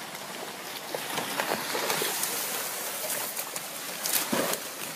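A crowd of farmed crocodiles scrambling over one another and splashing in the shallow water of their pen, a continuous watery hiss with scattered knocks as they jostle for food.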